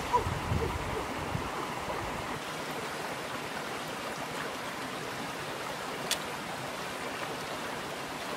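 Shallow river running over rocks, a steady rush of water, with some splashing in the first second or so. A single sharp tick about six seconds in.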